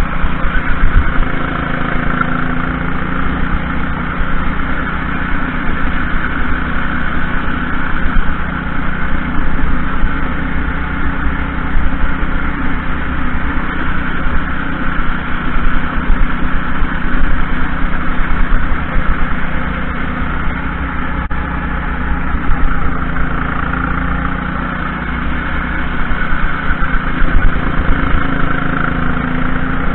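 Junior racing kart's engine running hard through a lap, heard close from a camera mounted on the kart, its note staying fairly even with small rises and dips in level as the driver works the throttle through the corners.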